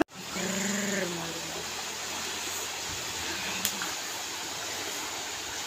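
Steady rushing of a fast, muddy flooded river, with a faint held voice in the first second.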